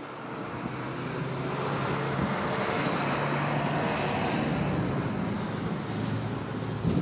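A vehicle passing by: a rush of noise with a low hum that swells, is loudest around three to four seconds in, and fades after that.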